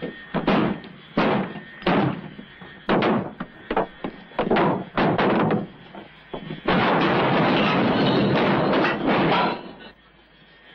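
Sledgehammer blows ringing on the metal engine cowling of an old Douglas DC-3 Dakota, struck over and over at uneven intervals. About two thirds of the way in, a loud, steady rush of noise lasts about three seconds, then cuts off.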